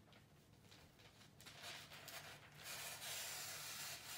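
Wrapping paper being handled and folded around a present, a soft crinkling rustle that builds about a second and a half in and is loudest near the end.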